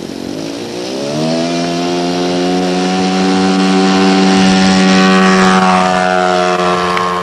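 Model plane's .70 four-stroke glow engine running. It throttles up about a second in and then holds a steady, loud note.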